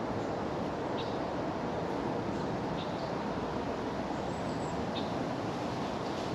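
Steady rushing outdoor noise with a few short, high bird chirps every second or two.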